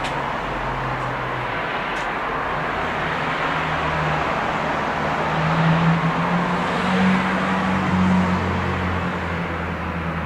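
Road traffic on a town street: car engines and tyre noise, with one vehicle's low engine hum swelling a little past the middle.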